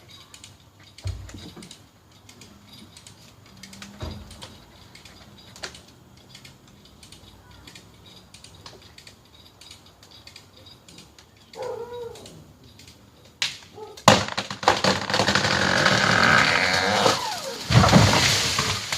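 A large tree coming down. It gives a sharp crack, then a loud crackling rush of branches for about three seconds, and ends in a heavy thud as it hits the ground near the end.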